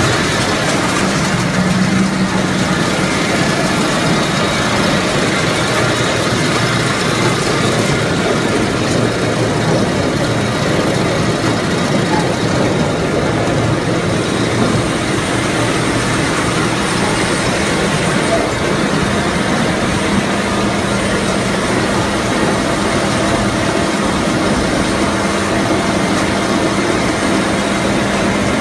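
Truck-mounted tub grinder running at idle: a loud, steady mechanical drone with a constant low hum, without change.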